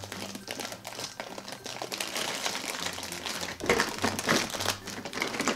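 Clear plastic packaging bag crinkling and crackling as it is opened and the Play-Doh tools and molds are pulled out of it, loudest about two-thirds of the way through.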